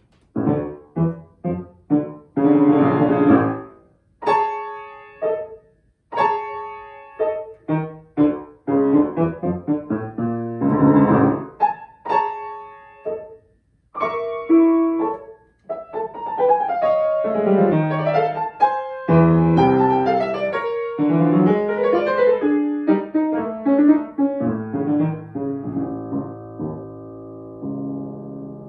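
Solo grand piano playing a contemporary piece: short, detached chords separated by brief pauses at first, then denser continuous playing from about halfway, ending on a held low chord that slowly fades.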